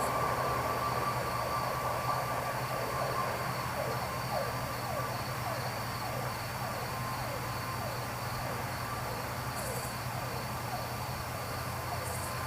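Crickets and other insects chirping steadily as the response siren of a Blue Ridge Rescue Squad ambulance fades away into the distance, with a low rumble underneath.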